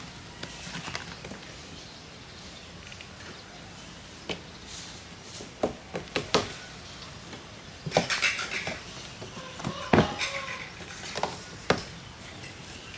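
Light knocks, taps and clatter from cats playing and moving about, sparse at first and coming thicker in the second half.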